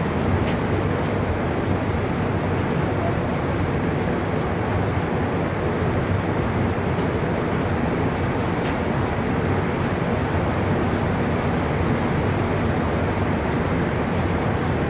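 Steady rushing noise of fast-flowing floodwater, even and unbroken.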